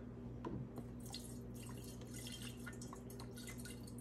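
Isopropyl alcohol trickling faintly from a plastic bottle into a glass bong, with a few small clicks near the start.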